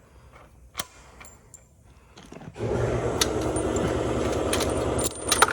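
A few faint clicks, then, about halfway through, an air compressor kicks on and runs with a steady hum.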